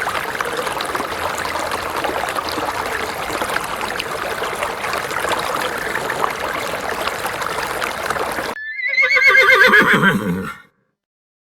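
A steady rush of running water, cut off suddenly about eight and a half seconds in by a horse whinnying once, a shaky, quavering call of about two seconds that drops low at its end.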